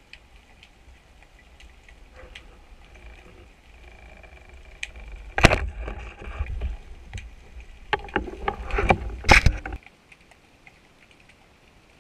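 Underwater sound picked up through a GoPro's housing: a low steady rumble, a loud sharp knock about halfway through, and a cluster of clicks and knocks a few seconds later. The rumble cuts off suddenly near the end.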